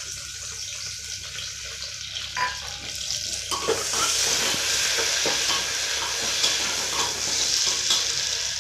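Sliced onions sizzling in hot oil in an aluminium pressure cooker, stirred with a spoon that scrapes and knocks against the pot. The sizzle grows louder about three and a half seconds in.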